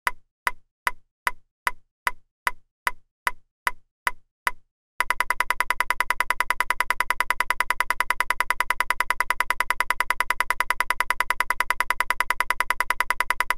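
Ping-pong ball hit sound effect, a short pitched pock repeating evenly about two and a half times a second. About five seconds in it switches to a rapid-fire run of the same pock, many times a second, as the rally speeds up.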